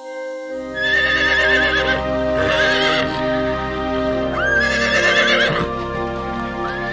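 Horses whinnying over background music: four shaky, quavering neighs, the last starting near the end.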